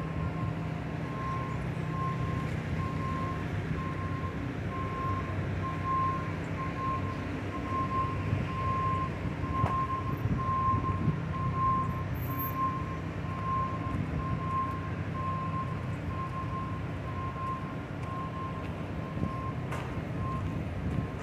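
Backup alarm of a reversing vehicle beeping steadily, one high tone about once a second, over the low rumble of its engine.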